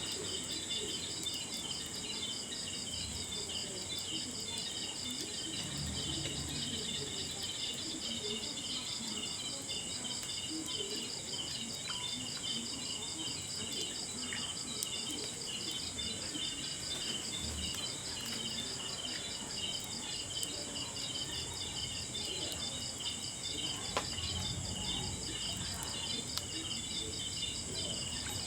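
A steady chorus of insects chirping in fast, even pulses, with a few faint sharp crackles from a campfire scattered through it.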